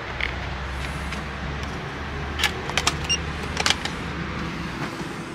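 A hotel room door's keycard lock being worked: a few sharp clicks and a short faint electronic beep, over a steady low hum.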